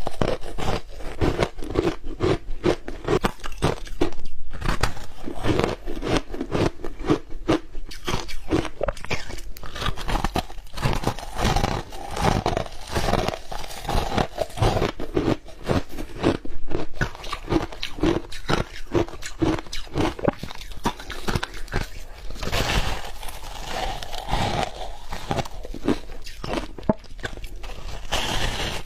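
Close-up crunching and chewing of powdery blue shaved ice dusted with matcha, in rapid repeated bites several times a second.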